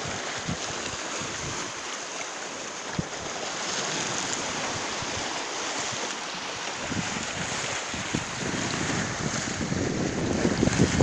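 Sea waves washing onto a beach, with wind buffeting the microphone in low rumbling gusts that grow stronger near the end.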